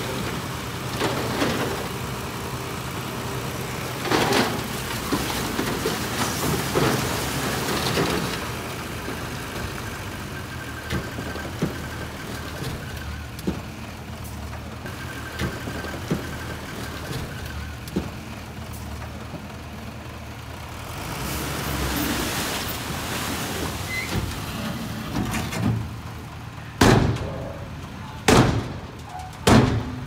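Bulldozer's diesel engine running steadily under irregular clanking and scraping, with three loud bangs in the last few seconds.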